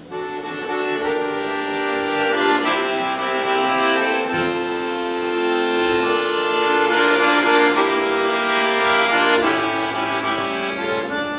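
Accordion playing an instrumental introduction to a folk song: held chords that change every second or two.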